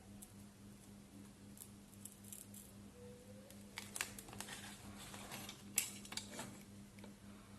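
Faint clicks and taps of small metal tools on a repair bench, several in a cluster in the second half with one sharper click near the end, over a steady low electrical hum.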